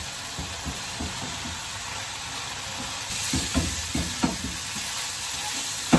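Green beans and broccoli sizzling as they stir-fry in a hot wok-style pan, a steady hiss. About halfway through, a spatula starts stirring them, knocking and scraping against the pan several times as the sizzle brightens.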